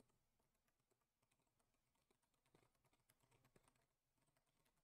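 Very faint typing on a computer keyboard: irregular, scattered keystroke clicks.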